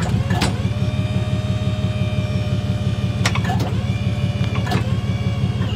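Tow truck's engine idling while its remote-controlled wheel lift extends under a car: a steady whine sits over the engine's low running, with a clunk about half a second in and two more past the middle as the lift moves and stops.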